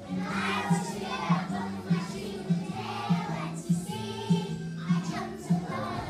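A group of young children singing together over a recorded backing track with a steady beat, a little under two beats a second.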